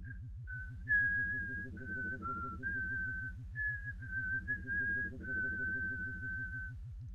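A person whistling a slow phrase of about a dozen held notes, stepping up and down a little in pitch, the last note held longest. A low, quickly pulsing hum runs underneath.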